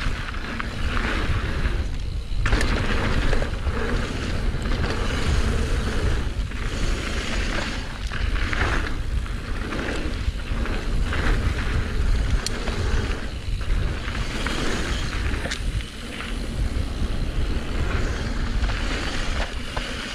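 Mountain bike ridden fast down a dirt trail: tyres rolling over dirt and stones, the bike rattling with a few sharp knocks over bumps. Wind rumbles steadily on the helmet camera's microphone throughout.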